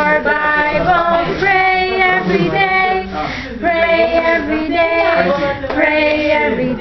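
A toddler singing along with a group of young women, holding sung notes in short phrases.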